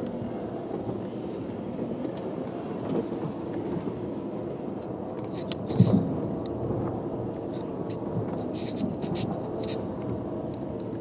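Car heard from inside the cabin driving slowly on a rough, broken road surface: steady engine and tyre rumble with scattered clicks and knocks from the bumps, and one heavy jolt about six seconds in.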